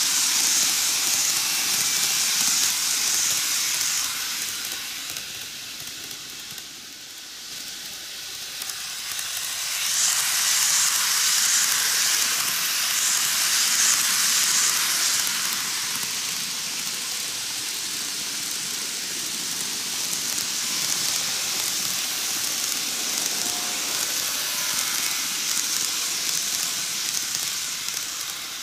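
N gauge model trains running on curved track, giving a steady high-pitched hiss of wheels and motors on the rails. It swells as the cars pass close, at the start and again about ten to fifteen seconds in.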